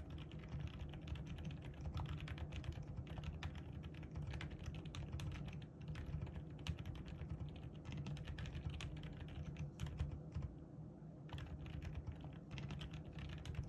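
Typing on a Leobog Hi75 mechanical keyboard fitted with silent Moon White switches: a steady, rapid run of keystrokes, with a brief pause about ten and a half seconds in.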